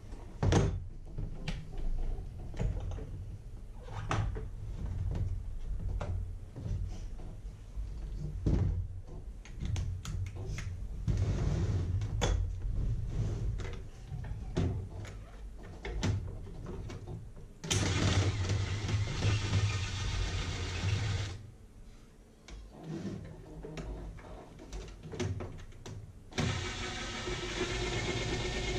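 Cordless drill-driver running in short runs as it backs screws out of a plastic radio casing, with clicks and knocks of handling in between. Its two longest runs last about three seconds each: one about two-thirds of the way through and one near the end.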